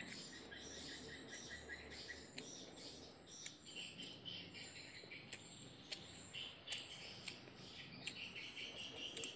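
Insects and birds chirping in the background, with a quick run of short repeated chirps, about five a second, over the first two seconds. Scattered faint clicks of a person chewing food with closed lips come through over the top.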